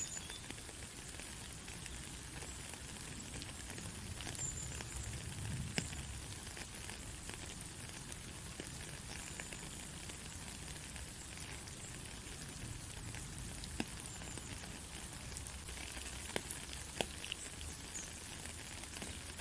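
Steady rain falling on a country road: an even hiss with scattered sharper ticks of single drops.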